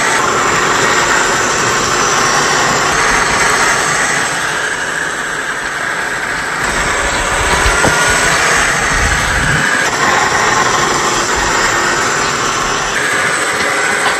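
Traxxas TRX-4 scale RC crawler's electric motor and geared drivetrain running steadily as it drives, the sound changing abruptly a few times.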